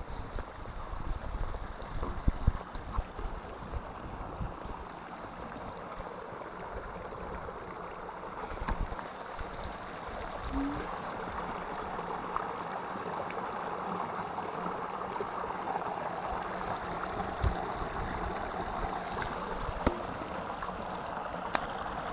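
Small mountain stream rushing over rocks, the splash of a little cascade into a pool growing louder about halfway through as it comes close. Gusts of wind buffet the microphone in the first few seconds.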